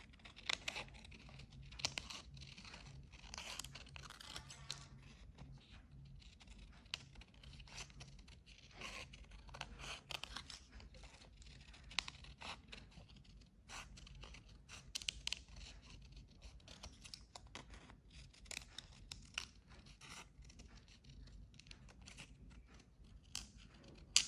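Scissors cutting colored paper: irregular short snips with paper rustling and crinkling.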